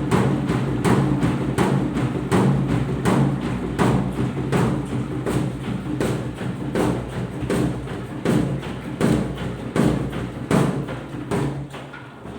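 Washing machine tub knocking about three times a second over a steady motor hum, the sign of the tub fault. The knocks fade and space out slightly toward the end.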